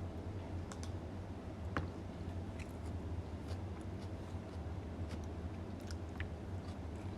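Scattered faint clicks and light taps over a steady low hum.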